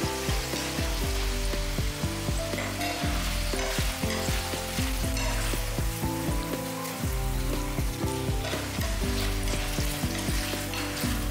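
Oil sizzling steadily as cubed potatoes deep-fry in a pan, with light clicks of chopsticks stirring and a wire skimmer scooping the potatoes.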